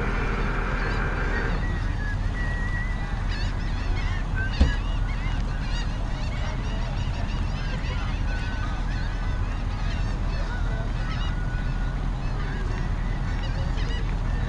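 Boat outboard motors running with a steady low rumble. Many short, high bird calls come and go over it. A steady whine cuts off about a second and a half in, and there is a single knock about four and a half seconds in.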